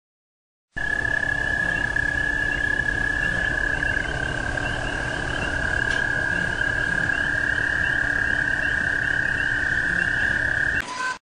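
A steady, high-pitched held tone over a rough hiss and rumble, laid in as a horror ambience sound effect. It starts abruptly about a second in, dips slightly in pitch partway through, and cuts off suddenly near the end.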